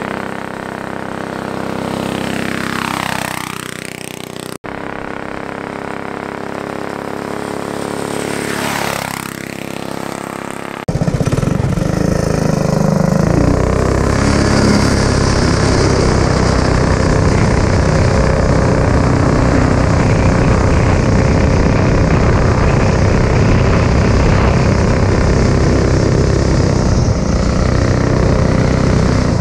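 A rally go-kart's small four-stroke engine running hard as the kart passes by twice. About eleven seconds in, the sound switches to an onboard view: the engine is louder and steady at full throttle.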